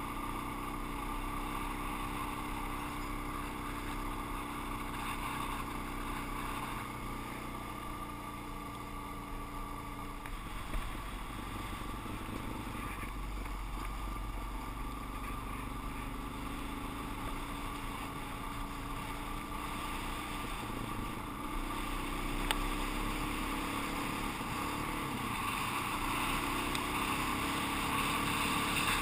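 A Suzuki DR-Z400's single-cylinder four-stroke engine running at road speed, heard from the rider's helmet with wind noise over the microphone. The engine note shifts a few times as the speed changes, climbing again late on.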